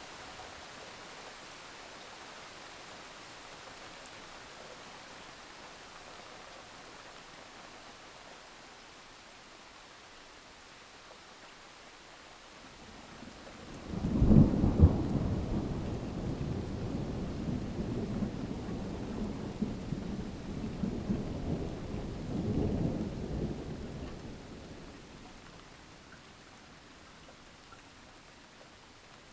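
Steady rain, with a thunderclap about halfway through that rolls on as a low rumble for about ten seconds before fading back to the rain.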